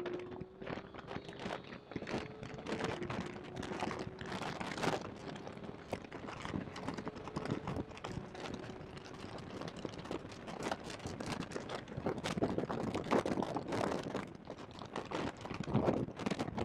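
Porsche 991.2 GT3's 4.0-litre flat-six at high revs inside the cabin, its note rising through the gears with a drop at an upshift about three seconds in. It is largely buried under continuous crackling, crunching distortion from a badly placed microphone.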